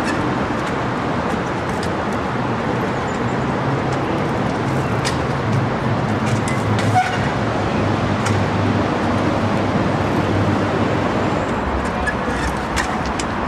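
Steady traffic noise, with a low vehicle drone that swells through the middle, and a few faint knocks.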